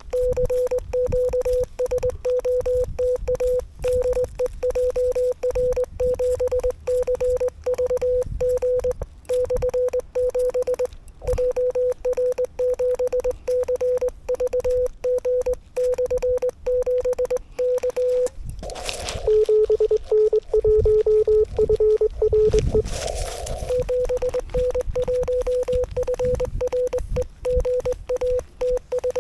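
Morse code sent by hand on a straight key, heard as the Yaesu FTX-1F transceiver's CW sidetone: a single tone of about 500 Hz keyed on and off in an irregular dot-dash rhythm. About two-thirds of the way through, the keying stops for about four seconds. In that gap a slightly lower, steady tone sounds, with a rush of hiss at its start and end, before the hand keying resumes.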